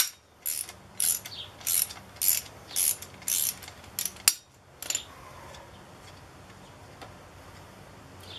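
Socket ratchet wrench clicking in short bursts about every half second as it turns out a bolt on the EGO mower's stacked blade assembly. A sharp click comes about four seconds in, and the ratcheting stops about five seconds in.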